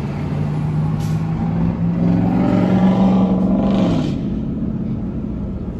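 Car engine pulling away under acceleration, its note rising for about two seconds and then dropping about four seconds in as it shifts up, over steady road and wind noise. Heard from inside the cabin with the driver's window open.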